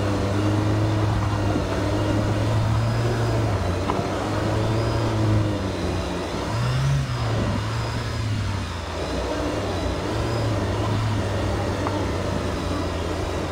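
Jeep Wrangler JL engine running at low revs on an off-road trail, with a brief rise in revs about seven seconds in.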